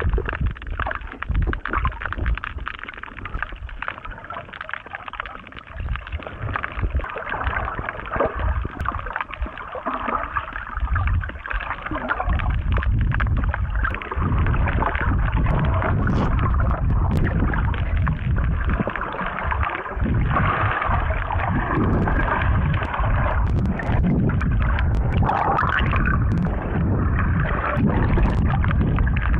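Muffled underwater sound picked up by a camera in a waterproof housing: water churning and gurgling as the snorkeler moves through shallow sea, louder and steadier from about halfway through.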